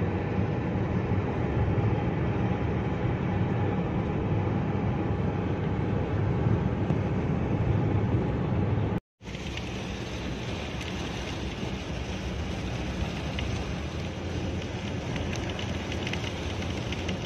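Steady road and engine noise inside a moving car. It cuts off abruptly about nine seconds in, and a second stretch of steady car noise follows, with faint ticks of raindrops on the car near the end.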